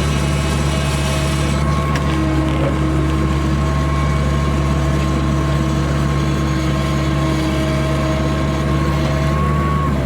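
Small skid steer running steadily at high throttle, its engine drone joined by a steady whine, while it works a very large rock.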